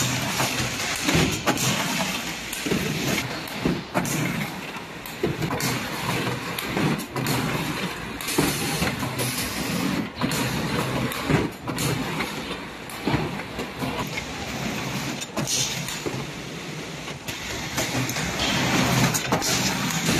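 Four-foot plywood core veneer composer running: a steady mechanical clatter from its chain conveyors and drive, with frequent irregular knocks.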